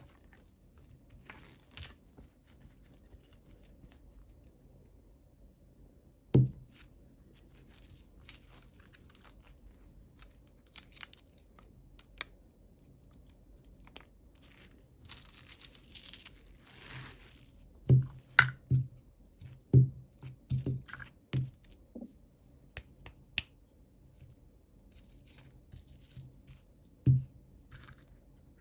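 Hands unboxing small plastic toys: scattered clicks and light knocks of plastic being handled, with a short tearing, rustling stretch about halfway through and a run of sharper knocks soon after.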